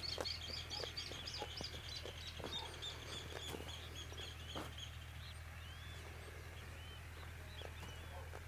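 Birds singing in the open: a quick run of short high chirps over the first few seconds, then scattered arching whistled notes. A steady low hum runs underneath.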